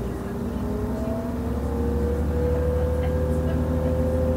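Class 628.4 diesel multiple unit's MTU 12V183 twelve-cylinder diesel engine running under power while the railcar is under way: a steady low drone with a tone that rises slightly in pitch, then holds, as it grows a little louder.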